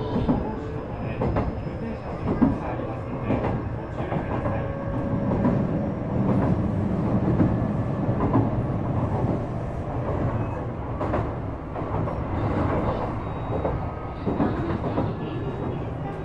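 Shizuoka Railway A3000 series electric train running, heard inside the car: a steady low rumble of wheels on rail with irregular clicks and knocks from the track.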